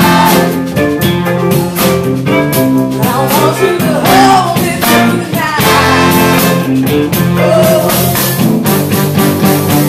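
Live soul and R&B band playing: a woman singing lead over horns, electric guitar, electric keyboard, bass and a steady drum beat.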